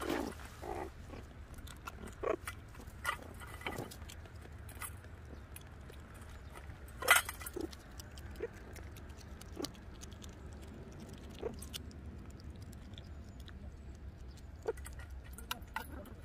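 Meerkats chewing and biting live loaches from a steel bowl: scattered short crunches and clicks, the loudest a sharp one about seven seconds in.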